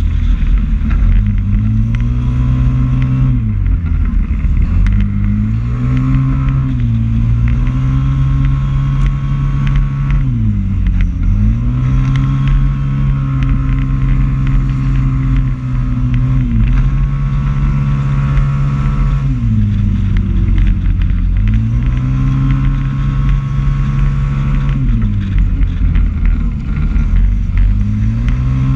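Onboard sound of a small motorcycle engine lapping a circuit at speed. The engine note climbs and holds high for a few seconds at a time, then drops away and climbs again, several times over, with a steady low rumble of wind and road beneath it.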